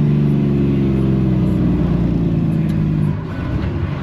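Kenworth T800 dump truck's diesel engine heard from inside the cab, a loud, steady drone at one pitch that falls away about three seconds in as the truck slows to turn off the road.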